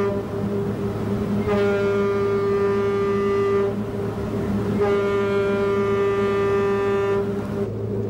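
A ship's whistle sounding long, steady blasts of one pitched note: a blast ends just as the sound begins, then two more of about two seconds each follow with a short gap between. A steady low hum runs underneath.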